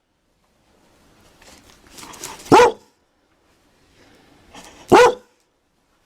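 A Dalmatian barking twice: two single barks about two and a half seconds apart, each after a softer sound just before it.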